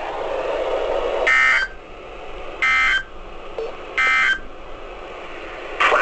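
NOAA Weather Radio SAME end-of-message data bursts from a weather radio's speaker: three short, identical buzzy bursts a little over a second apart, after a stretch of broadcast hiss, signalling the end of the warning message.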